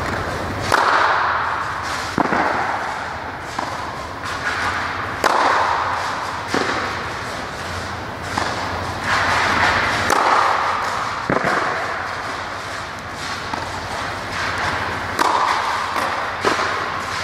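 Tennis ball struck back and forth by rackets in a rally, a sharp hit every second or two, each echoing briefly in the indoor hall.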